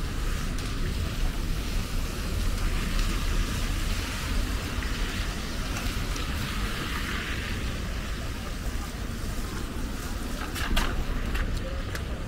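Rainy city street: a steady hiss of rain and tyres on wet asphalt over a low rumble, the hiss swelling around the middle as a vehicle passes. A few sharp clicks near the end.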